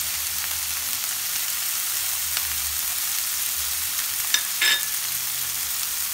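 Chicken strips sizzling in hot oil in a nonstick frying pan: a steady high hiss, with two brief clicks about four and a half seconds in.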